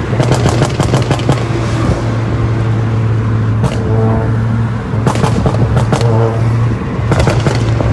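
Skoda Rapid 1.6-litre petrol engine running, with four bursts of rapid crackling and popping from the exhaust over the steady engine note. This is a pop-and-bang ('popcorn') effect programmed into the engine's ECU by chip tuning.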